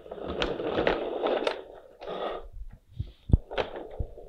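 Wader plastic toy dump truck pushed across a hard floor: its wheels rumble and rattle for about a second and a half, then again briefly, followed by a few sharp knocks, the loudest about three seconds in.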